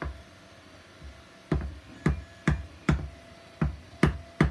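Mallet tapping on a wooden block to drive the square pins of 3D-printed plastic puzzle pieces into their square holes. There is a single sharp knock, then from about a second and a half in a quickening run of knocks, roughly two to three a second.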